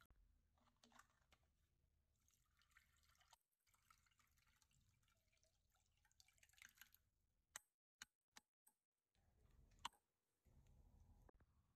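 Very faint squelching and dripping of tamarind water as soaked tamarind is squeezed by hand and the water is strained through a plastic sieve, with a few soft sharp clicks in the second half.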